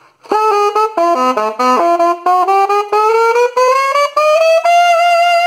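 Saxophone playing a short run of quick notes, then a rising chromatic scale on D, climbing step by step through about an octave and ending on a held high note.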